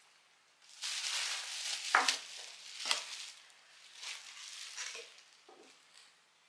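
Plastic bubble wrap rustling and crinkling as it is pulled away from a wooden mug, with two sharp knocks about a second apart as the mug is handled and set down on a wooden table. Lighter rustles and small taps follow.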